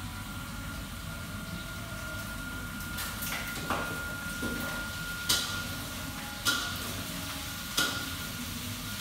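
Commercial kitchen work sounds: a steady low hum with a faint high whine, broken by four sharp clatters of dishes and utensils being handled at the prep counter, the loudest about halfway through.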